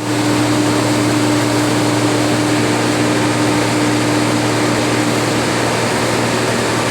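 A bus's engine running steadily at an even speed: a loud, unchanging noise with a constant hum.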